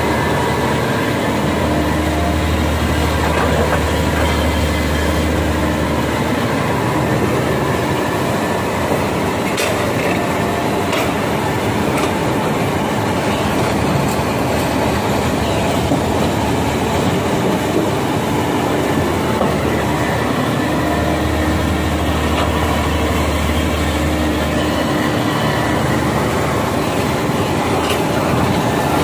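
Caterpillar hydraulic excavator digging in broken rock: its diesel engine runs steadily under a dense mechanical clatter, with a few sharp knocks. The low engine drone grows heavier twice, for several seconds each time.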